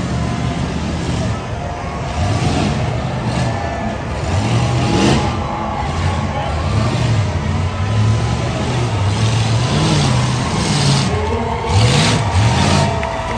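Tough-truck race engine revving hard and easing off again and again, its pitch rising and falling about once a second.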